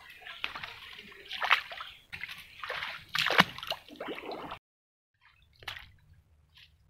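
Shallow stream water splashing and sloshing under someone's feet, in several loud splashes that stop abruptly about two-thirds of the way through. A few faint drips and rustles follow.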